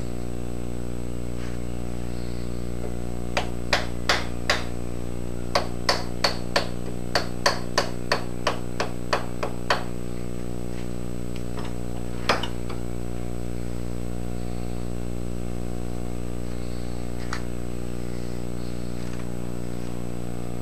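Soft-face hammer tapping a milling machine vise. About seventeen light, quick taps, a few a second, come over some six seconds, then one more after a pause. The taps nudge the vise into alignment until the dial indicator reads zero.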